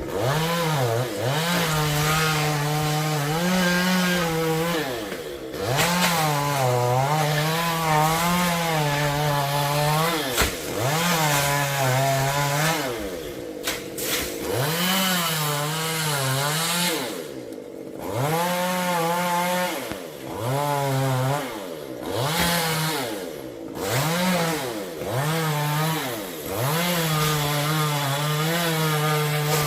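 STIHL MS 194 T two-stroke chainsaw cutting coconut wood, revved up to full throttle again and again with short drops back toward idle between cuts, about a dozen times.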